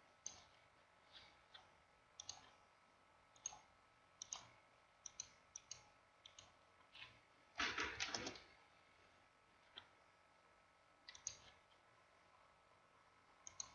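Faint, scattered clicks of a computer mouse, coming irregularly about once or twice a second, with a quicker, louder run of clicks about eight seconds in.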